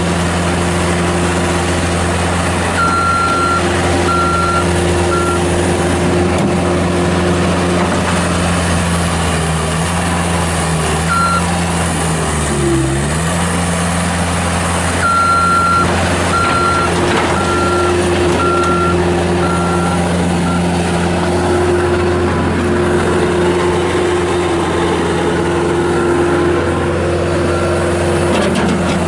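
Bobcat S205 skid steer's Kubota diesel engine running steadily, its engine speed dipping briefly and recovering about twelve seconds in, as under load. The machine's backup alarm beeps in two runs, early on and again midway, as it reverses.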